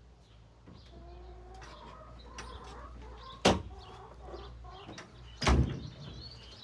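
Chickens clucking in short calls, with two loud thumps, one about three and a half seconds in and another about two seconds later.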